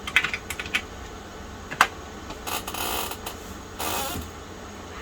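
Typing on the Tandy 1000 EX's keyboard: a quick run of keystrokes, then a single sharper key press a little under two seconds in, followed by two short rasping bursts.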